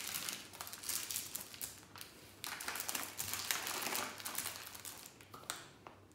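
Thin plastic breath bag of a disposable breathalyser crinkling as it is squeezed flat by hand to push the breath out through the test tube. The crinkling is dense and irregular, stops about five and a half seconds in.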